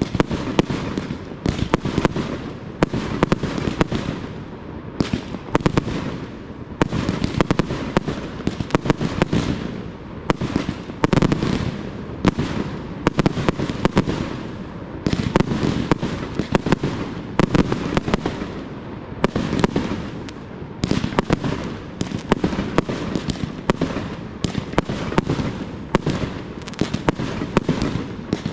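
Professional fireworks display: aerial shells firing and bursting in quick succession, a dense run of sharp bangs, often several a second, over a continuous rumble.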